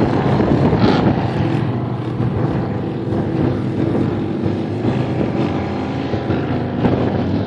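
Engine running steadily at a constant pitch, with wind buffeting the microphone.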